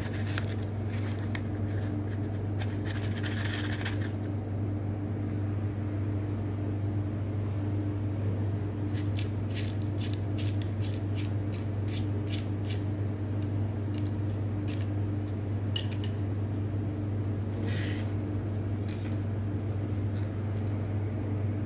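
Metal spatula scraping and tapping against a small platinum crucible as granular sodium peroxide is spooned in: scattered light clicks and scrapes in a few short clusters. A steady low electrical hum runs underneath.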